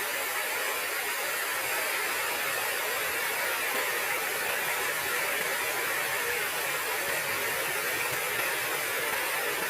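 Steady rushing hiss of falling and flowing water from the waterfall, even and unbroken throughout.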